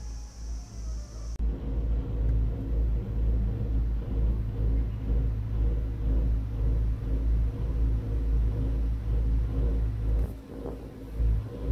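Low, uneven rumble inside a moving ropeway gondola cabin, with a faint steady hum underneath; it dips briefly near the end.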